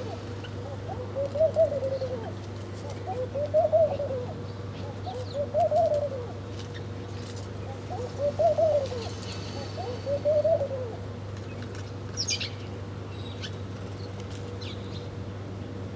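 A pigeon cooing: five low rising-and-falling coos about two seconds apart, which stop after about eleven seconds. A brief high chirp from another bird comes about twelve seconds in, over a steady low hum.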